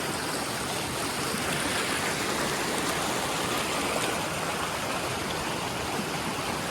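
Small waterfall spilling over rocks, a steady rush of falling water.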